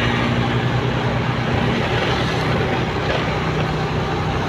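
Motorcycle engine running steadily at cruising speed, with a rushing wind and road noise over it.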